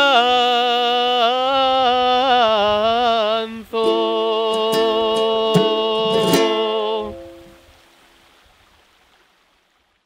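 Male voice holding the closing notes of an Asturian tonada: a long wavering note with vibrato, a short break for breath, then a steady final note with a few ukulele plucks under it, ending about seven seconds in and dying away.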